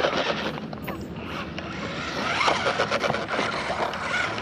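1/16-scale brushed-motor RC drift car (Su Chi Yu 16301 / JJRC Q117E) driving on concrete, its small electric motor whining and rising and falling in pitch as the throttle changes.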